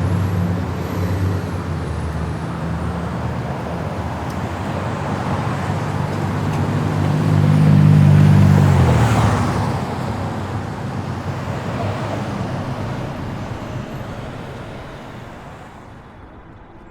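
City street traffic: a vehicle engine running low at first, then a louder vehicle passing close, loudest about eight seconds in, before the traffic noise fades down near the end.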